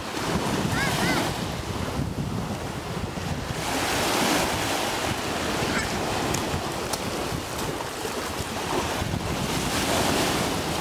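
Small Baltic Sea waves breaking and washing up onto a sandy beach. The surf swells about four seconds in and again near the end, with wind buffeting the microphone.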